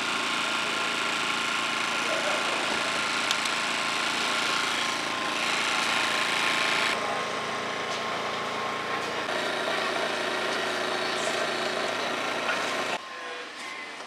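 A small engine running steadily with a constant hiss. The hiss grows brighter for a couple of seconds in the middle, and the sound stops suddenly near the end.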